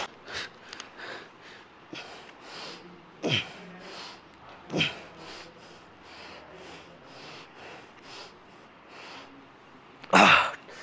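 A man breathing hard in quick, forceful huffs while pressing heavy dumbbells overhead, with sharper exhalations about three and five seconds in and the loudest huff near the end.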